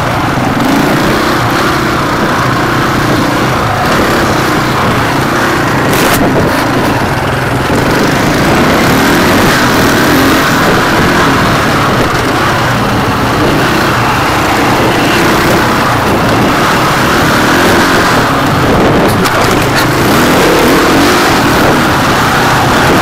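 Off-road dirt bike engine running hard, its pitch rising and falling as the throttle opens and closes over a bumpy dirt track, heard close up from an onboard camera. A few sharp knocks, about six seconds in and again near the end.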